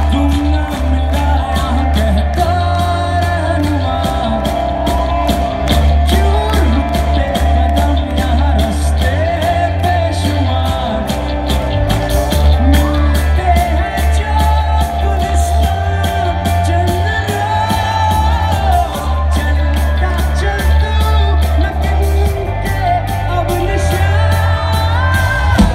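Rock band playing live: a male vocalist singing over acoustic guitar, electric guitar, bass and a steady drum beat.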